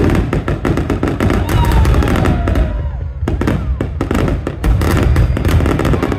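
Aerial firework shells bursting in quick succession: dense crackling and bangs over a continuous low rumble, with no let-up.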